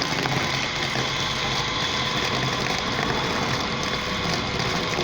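Mitsubishi Montero's engine idling steadily, an even mechanical hum with no change in speed.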